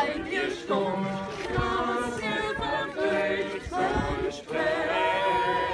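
A small choir singing a song together, several voices holding notes, with short breaks between phrases.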